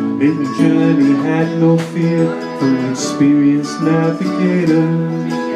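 Live folk music: a mandolin picked over held chords from a concertina, keeping a steady tune going.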